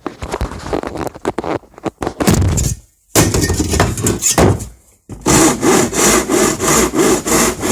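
Handsaw cutting through wood in three runs of strokes, broken by short pauses about three and five seconds in; the last run is a steady back-and-forth rhythm of roughly two to three strokes a second.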